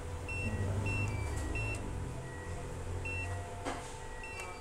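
Hitachi ATM keypad beeping as the PIN is typed in: a string of short, high beeps, one per key press, with a pause of over a second partway through.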